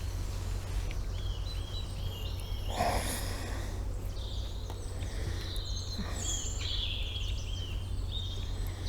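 Small songbirds singing, a run of short high chirps and trills, over a steady low outdoor rumble, with a brief breathy rustle about three seconds in.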